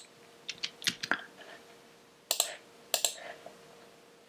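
Computer mouse and keyboard clicks: about half a dozen sharp, separate clicks, some in quick pairs, over a faint steady hum.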